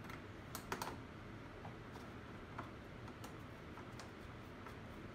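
Faint, irregular small clicks and taps of metal fastener hardware and plastic as a bolt or nut is worked by hand, by feel, behind a UTV's plastic body panel.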